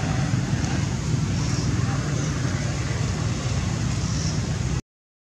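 Steady low outdoor rumble with a hiss over it and no distinct event, cutting off abruptly to silence for about half a second at the end.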